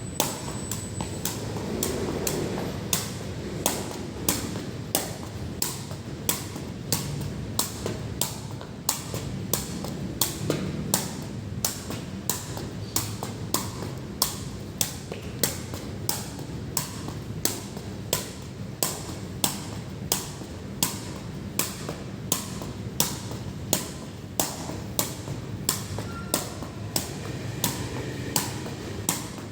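Water dripping in a steady rhythm during rain, each drop a sharp tap about twice a second, over a steady low wash of rain noise.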